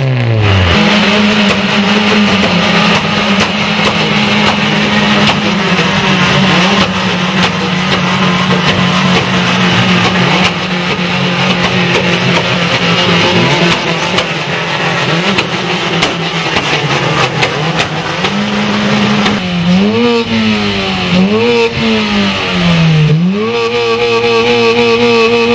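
Modified car engine held at high revs with a loud exhaust. Near the end the revs drop and climb back three times, then hold high again.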